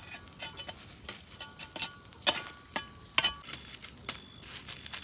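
Tableware clinking: a run of light, irregular clinks and taps, some of them ringing briefly.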